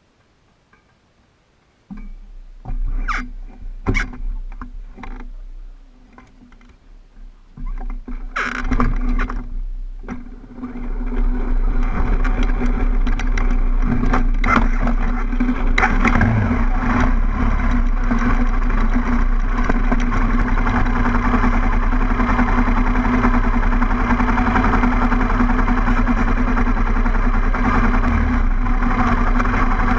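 An off-road vehicle's engine starts about two seconds in, with knocks and uneven running over the next several seconds, then settles into a loud, steady run from about eleven seconds on.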